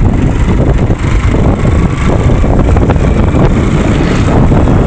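Loud wind rush buffeting the microphone of a moving motorcycle, with the bike's engine running steadily underneath.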